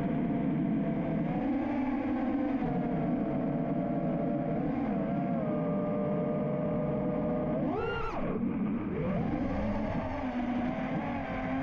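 Ethix Stout 2306 1750 kV brushless motors of an FPV freestyle quadcopter whining, the pitch drifting up and down with throttle. About eight seconds in there is a quick sharp rise and fall in pitch.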